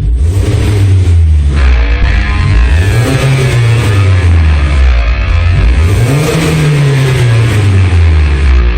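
BMW Z3's M44 four-cylinder engine running loud and revving, its pitch rising and falling slowly several times, with more hiss from about one and a half seconds in.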